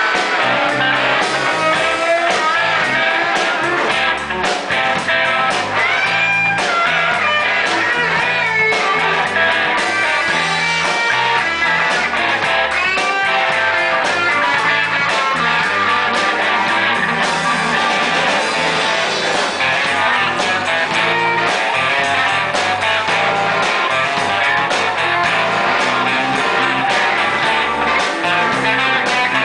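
Live band jamming: electric guitars and an electric bass playing together, with gliding bent notes from a guitar a few seconds in.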